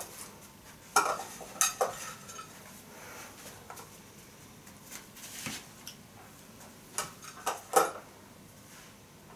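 Scattered clinks and clatters of a metal dog bowl and a handheld treat dish: about eight separate sharp knocks, a few with a brief metallic ring.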